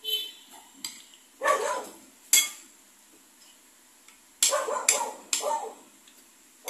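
A metal spoon clinking and scraping against a glass bowl as avocado is mashed, with a sharp clink about two seconds in. Several short, louder rough sounds come in between, about one and a half seconds in and again near the end.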